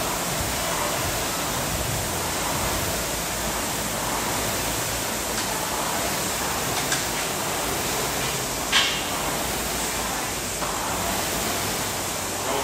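Concept2 air rower's flywheel fan whooshing as it is rowed hard, a steady rush of air that swells softly with each stroke, about one every second and a half to two seconds. A sharp click sounds near the nine-second mark.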